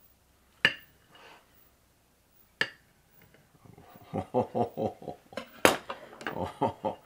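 Knife clinking against a plate while cutting a piece of cake: two sharp clinks in the first few seconds, then a run of short, rapid scraping strokes, with a loud clack near the end as the knife is set down.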